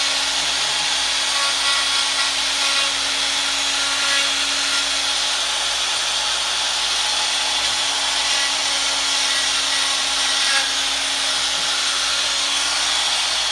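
Electric die grinder running at a steady, turned-down speed, its bit grinding away material to port and feather the edges of a plenum opening, with a steady motor hum under the grinding noise.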